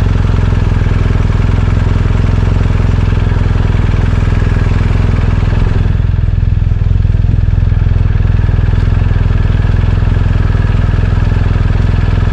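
BMW R1250RT motorcycle's boxer-twin engine running steadily and loudly.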